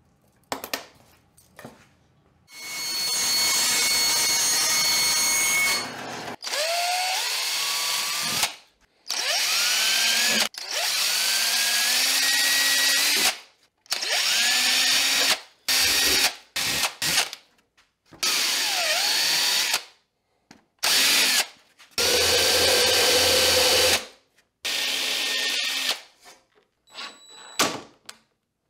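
Cordless drill running in repeated short bursts, each from under a second to about three seconds long, as it bores holes and drives screws through a plywood box bottom. In several bursts the motor's pitch rises as it spins up. A few light clicks come before the first burst.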